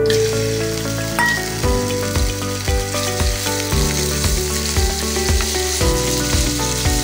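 Chopped garlic sizzling and spitting in hot oil in a frying pan. Background music with a steady beat comes in about two seconds in.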